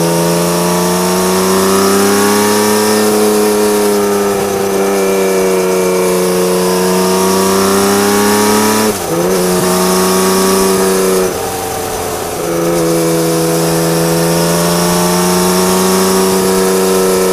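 Honda CBX1000 inline-six running loud through a modified Marving exhaust, its pitch rising and falling slowly with the throttle while riding uphill. About nine seconds in, the note dips sharply and climbs again, as at a quick gear change. A couple of seconds later the exhaust note drops away briefly, as when the throttle is closed, then comes back.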